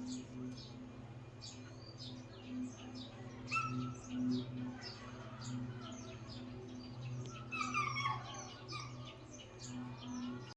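Small birds chirping: many short, high chirps in quick succession, over a steady low hum.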